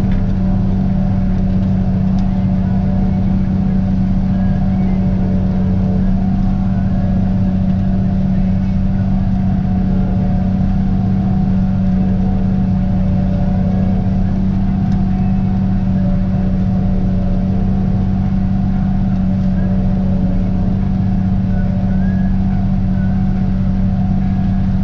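Tractor and pull-type New Holland forage harvester running steadily under load while chopping standing corn: a loud, unchanging engine-and-machine drone with a strong low hum.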